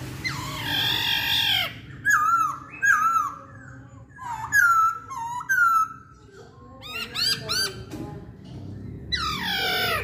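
Black-throated laughingthrush (poksay Hongkong) singing: loud whistled notes that dip and then rise, repeated in short phrases, with a longer downward-sliding call near the start and another near the end.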